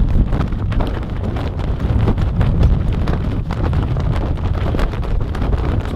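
Wind buffeting the microphone in a steady low rumble, with irregular flapping and knocking from a Wharram wingsail rig as its gaff is peaked up on the halyard and the sail luffs.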